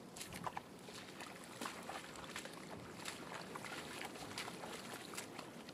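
Boots sloshing through shallow muddy water: an irregular run of small splashes and squelches as people wade and plant.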